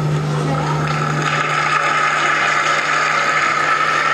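Steady low electrical hum with an even hiss of room noise from a public-address loudspeaker system relaying a broadcast.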